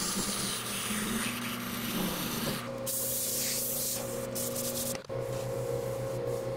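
A wood lathe motor hums steadily as the spinning bowling ball is worked: a rough cutting noise first, then a loud hiss of sandpaper on the spinning ball for about a second. The sound changes abruptly twice, about two and a half and five seconds in, at cuts between shots.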